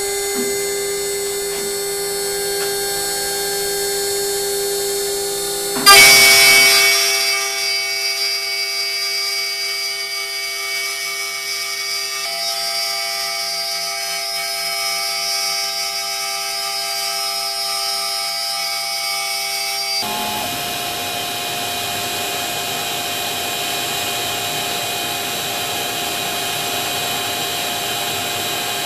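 A CNC router running a job: its stepper motors and spindle give several steady whining tones that shift pitch when the moves change. About six seconds in, a loud sudden burst dies away over about a second.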